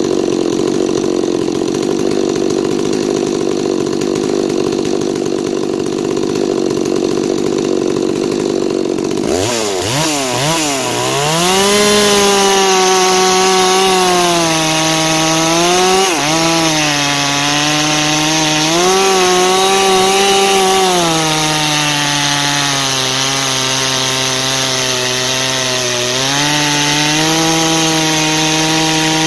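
Farmertec Holzfforma G660 two-stroke chainsaw with a 36-inch bar, running steadily, then revving up and down about nine seconds in. From about eleven seconds it runs at full throttle, ripping through dry, dense hardwood. Its engine note sags and recovers as the chain loads up in the cut.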